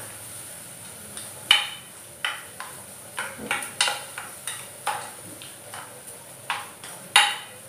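A steel spoon stirring carrots in a stainless steel pan, knocking and scraping against the pan about a dozen times at uneven intervals, over a faint sizzle of the carrots frying.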